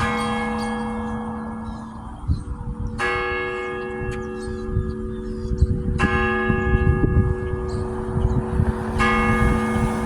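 Church bell striking the hour for ten o'clock: four strokes about three seconds apart, each ringing on and fading into the next.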